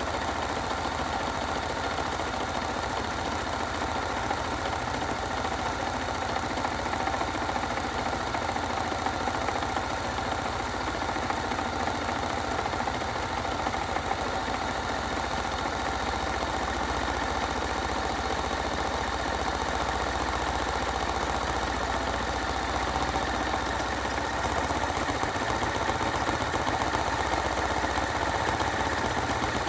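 Hoover washing machine running on its rinse and spin programme: a steady motor hum with a held whine, growing slightly louder near the end.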